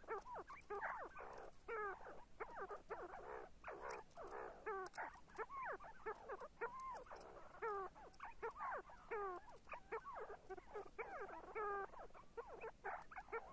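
See-see partridges calling: a close-packed, continuous run of short whistled notes, many sliding down in pitch, overlapping as from more than one bird.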